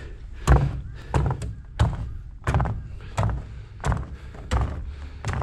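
Footsteps of a hiker wearing crampons climbing frozen steps: a steady pace of about eight steps, roughly one every 0.7 s. Each step is a dull thud with a sharp click of the metal spikes.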